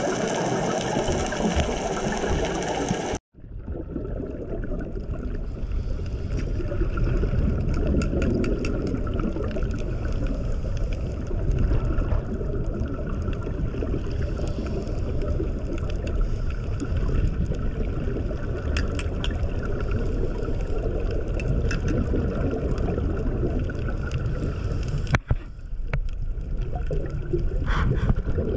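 A motor runs steadily for about three seconds and cuts off abruptly. A steady low rumble of moving water follows, with faint scattered clicks, broken briefly by another cut near the end.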